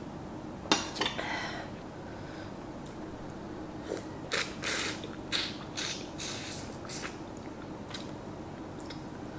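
Close-up eating sounds: broth sipped from a spoon, then a piece of oden fish cake bitten and chewed, as a string of short, sharp mouth and utensil noises. They are busiest about four to six seconds in.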